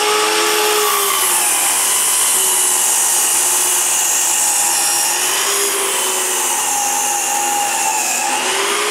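Festool Kapex KS 120 EB sliding miter saw running and cutting through a cedar board: a steady loud motor whine over the hiss of the blade in the wood.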